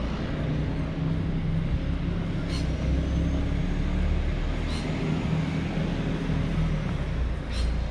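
A motor vehicle's engine running nearby, a steady low hum with rumble, heard as street traffic. Three short faint clicks come at intervals over it.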